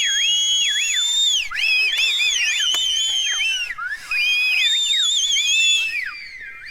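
A crowd of people whistling at once: many overlapping shrill whistles, some held and some sliding up and down in pitch. There is a brief break a little past halfway, and the whistling fades near the end.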